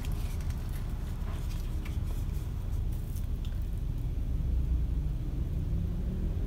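Steady low background rumble, swelling slightly about four and a half seconds in, with a few faint clicks as a small plastic bottle is picked up and handled.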